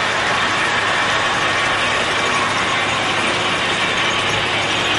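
Several model trains running on a layout: the steady mechanical noise of their small electric motors, gearing and wheels rolling on the track.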